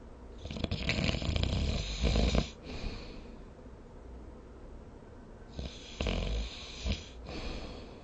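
A person snoring: two long snores about five seconds apart, the first the louder.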